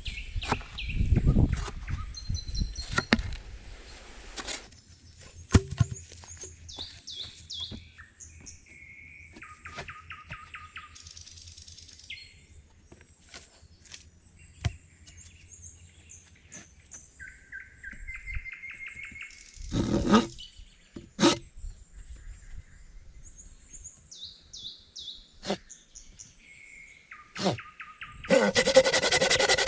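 Songbirds singing in woodland, several short repeated trills at different pitches, with a few knocks in between. Near the end a loud, steady rasping noise starts, much louder than the birdsong.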